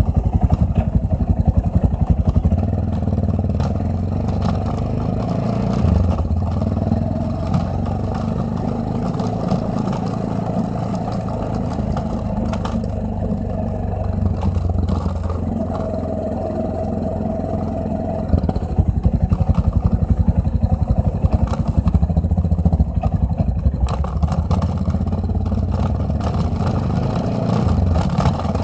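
Yamaha XT660Z Ténéré's single-cylinder engine running on the move, its speed stepping up and down several times, with a constant clattering rattle from the aluminium Roncar top case.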